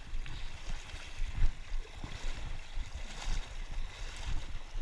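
Shallow river water sloshing and splashing in uneven pulses, with low rumbling on the microphone.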